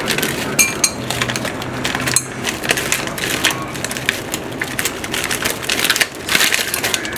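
Plastic bag of frozen mixed berries crinkling as it is handled and shaken out, with frozen berries rattling down into a glass of yogurt: a dense run of crackles and clicks.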